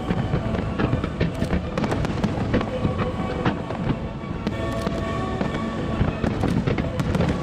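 Aerial firework shells bursting and crackling in rapid, overlapping succession, with music playing underneath.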